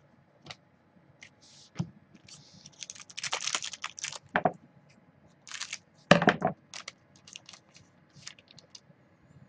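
Foil trading-card pack being torn open and crinkled by hand, with scattered light clicks of card handling. A denser stretch of crinkling comes a few seconds in, and a louder, brief handling noise about six seconds in.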